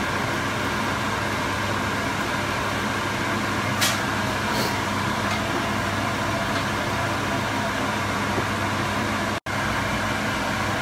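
Steady hiss of noodles and vegetables frying in a stainless steel pan, over a constant low hum; a wooden spatula clicks against the pan twice about four seconds in. The sound cuts out for an instant near the end.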